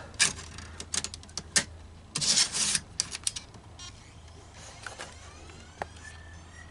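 Clicks and a short rustle of a DVD being loaded into a laptop's DVD-RW drive, then the drive spinning the disc up: a faint rising whine that settles into a steady high tone.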